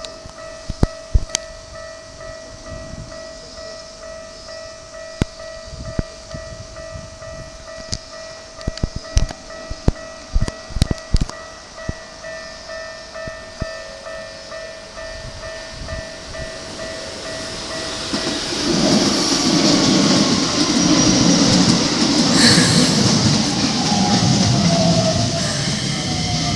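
Level crossing alarm sounding as a steady tone, with scattered sharp clicks. From about 18 seconds in, the rumble of a Keikyu 1000-series electric train swells as it comes through. Near the end its motor whine falls in pitch as it slows.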